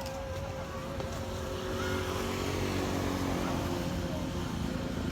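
An engine running with a low rumble and a steady whine, growing louder about two seconds in.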